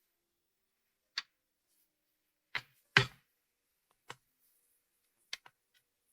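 Six short, sharp knocks and clicks at irregular intervals with silence between them; the loudest and deepest comes about three seconds in, and two quick ones come close together near the end.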